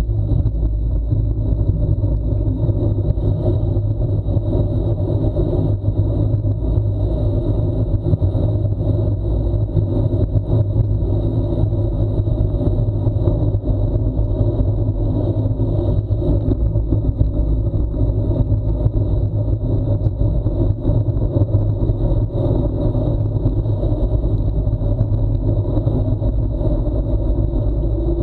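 Steady wind rush buffeting an action camera's microphone, mixed with tyre and road noise, on a bicycle descending a paved mountain road at speed.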